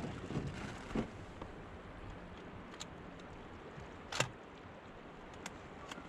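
River water washing along a kayak's hull as it drifts, with a few light drips or taps and one sharper knock about four seconds in.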